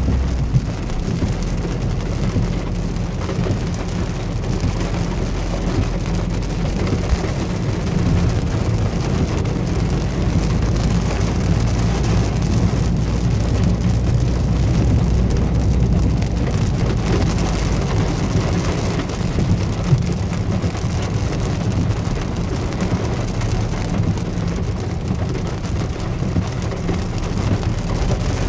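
Heavy rain falling steadily on a car's roof and windscreen, heard from inside the moving car. Under it the car's engine and its tyres on the flooded road keep up a steady low rumble.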